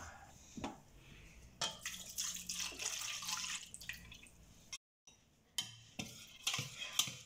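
Milk poured from a glass mug into a mixing bowl of beaten egg, a splashing trickle lasting about three seconds. After a short break, a wire whisk clinks a few times against the bowl as it starts stirring.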